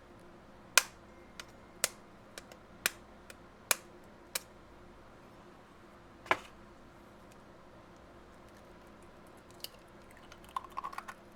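Chicken eggshell being tapped and cracked open by hand: a string of sharp clicks, about nine in the first four and a half seconds and one more at about six seconds, then a few faint ticks near the end.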